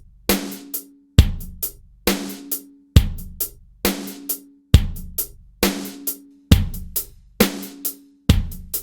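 Programmed drum loop playing back in a steady groove. Kick and snare alternate with a hit roughly every second, the snare with a ringing tone, and lighter hi-hat hits fall in between.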